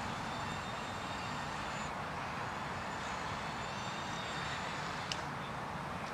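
A steady, distant engine-like rumble outdoors, with one faint click about five seconds in.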